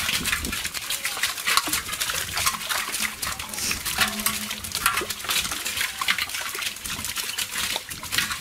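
Live shrimp and small fish flicking and splashing in shallow water held in a cast net, with hands rummaging through the catch: a dense, rapid crackle of small splashes and clicks.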